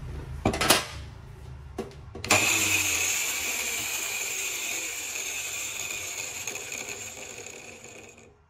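A couple of knocks as the angle grinder in a homemade sliding cut-off stand is handled. Then the grinder is switched on about two seconds in and runs free with a high whine, growing gradually quieter before it cuts off suddenly near the end.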